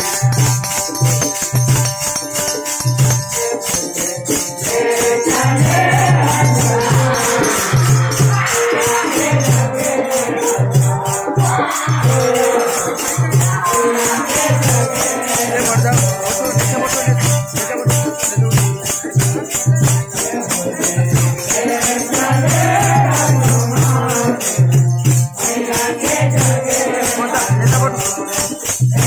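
Live devotional bhajan music: a harmonium, a barrel drum and a jingling rattle-type percussion keep a fast, even rhythm. The harmonium holds steady notes for the first few seconds, then group singing comes in over it.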